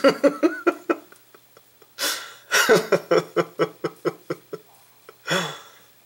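A man laughing close to the microphone: runs of short chuckles that fade out, with a breathy outbreath about two seconds in and a last voiced breath near the end.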